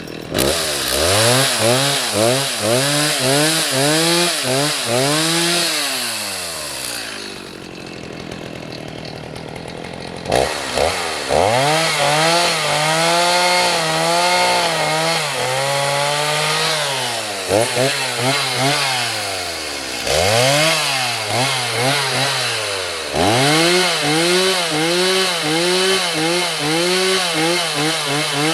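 Stihl Farm Boss two-stroke chainsaw with a 20-inch bar limbing a log, revving up and falling back again and again as it cuts off branch stubs. About a quarter of the way in it drops to a low idle for a few seconds before revving up again.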